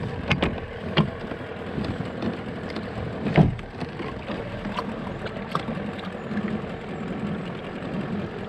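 Kayak moving on the water: water washing and lapping against the hull, with several sharp knocks of gear against the kayak in the first few seconds, the loudest about three and a half seconds in.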